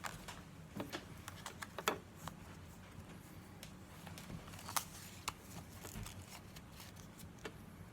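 Faint handling of a trading card booster pack and its cards: scattered short clicks and rustles of foil wrapper and card stock, in a cluster in the first two seconds and again around five seconds in.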